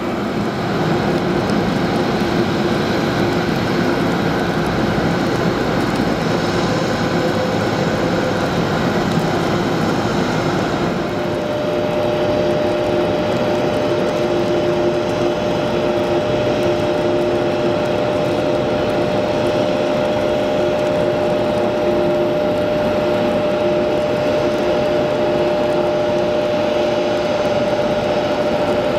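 Twin jet engines of a Boeing 767 airliner idling at taxi power, a steady jet whine and rumble. A second, higher steady whine joins about a third of the way in.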